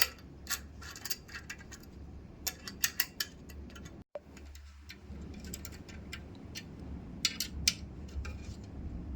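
Small metal clicks and taps as screws are fitted into a metal shelf and tightened with a hand tool, irregular and spaced out, over a low steady hum. The sound cuts out briefly about four seconds in.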